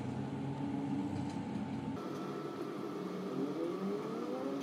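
Steady low background hum, like distant motor traffic or a running machine. It changes abruptly about two seconds in, and a faint rising whine follows near the end.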